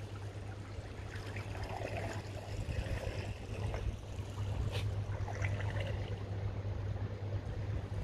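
Outdoor ambience: a steady low rumble under an even wash of noise like moving water, with faint scattered sounds over it.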